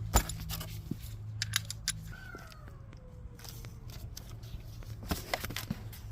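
Scattered clicks and taps of hand tools being handled, over a steady low hum. About two seconds in, a faint pitched call falls in pitch over roughly a second.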